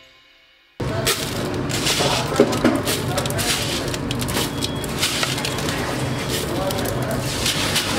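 Intro music fades out; about a second in, busy background noise with indistinct voices cuts in, with short light clicks as split moong dal is dropped by hand into a plastic jug.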